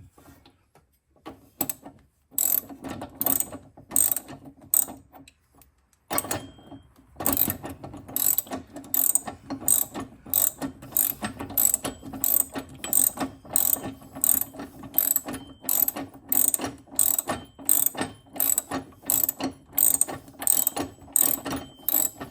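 Hand ratchet wrench clicking in short back-and-forth strokes, about two a second, as a nut is run down on a bolt. The strokes are sparse at first, with a pause about five seconds in, and then keep a steady pace.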